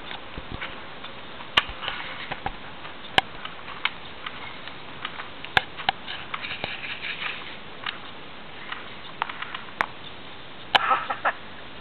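Movement through dry forest leaf litter: rustling and footfalls with irregular sharp clicks and cracks every second or two.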